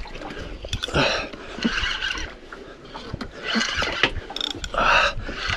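Fishing reel being cranked and clicking while a hooked fish is fought, with noisy swishes coming and going about once a second.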